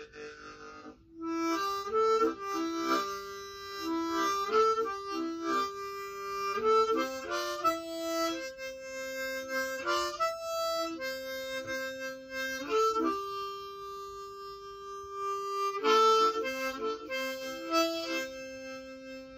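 Hohner Thunderbird low-tuned diatonic harmonica in low C, played as a solo melody in short phrases of quick notes and held tones, with a long sustained note about two-thirds of the way through.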